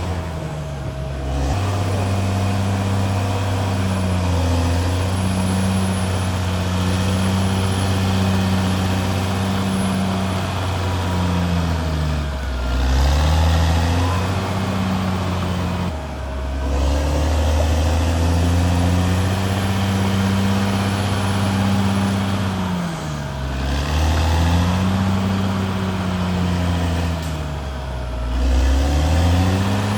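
CAT D6R XL bulldozer's diesel engine running steadily, its pitch sagging and picking back up about four times.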